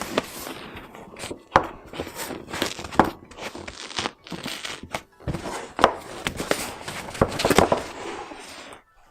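Packaging for a figure's accessories being opened by hand: plastic crinkling and rustling, with many sharp clicks and knocks of plastic parts and trays being handled.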